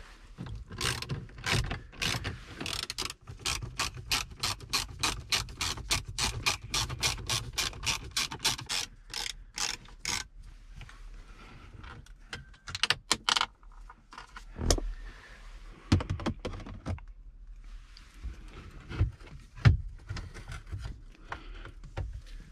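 Hand ratchet with socket clicking in a fast, even run of about three to four clicks a second as the radio's mounting screws are backed out. The clicks stop about ten seconds in, with a brief burst more a little later, then a few scattered knocks.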